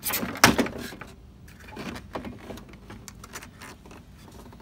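Plastic front grille of a Toyota FJ Cruiser being pulled loose from the front end: a few sharp clicks and knocks in the first half second as it comes free, then lighter rattling and scraping as it is worked away.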